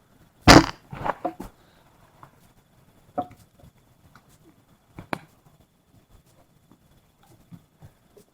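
Scattered sharp knocks: a loud clatter about half a second in, a few quicker knocks just after it, then single knocks near three and five seconds.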